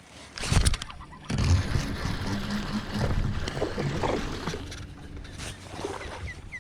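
A hooked largemouth bass splashing at the surface as it is fought to the boat and landed: irregular water splashing and boat-side commotion, with a sharp splash about half a second in.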